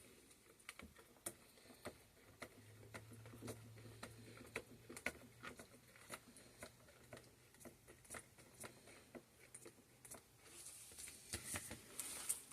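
Faint, irregular clicks and taps of a spatula stirring coffee grounds and cocoa powder into thick soap batter in a container.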